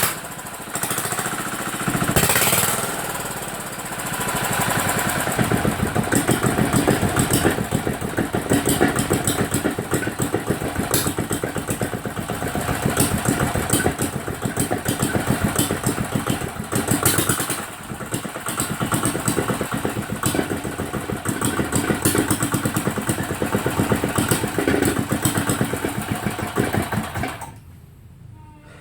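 350cc diesel engine on a board-tracker-style motorcycle, running with a rapid train of firing knocks and revved up and down several times. It shuts off near the end.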